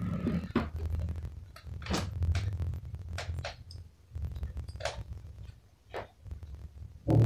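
Cloth rustling and soft knocks as a folded suit is handled and unfolded, in irregular short bursts over a low rumble, with a louder thump near the end.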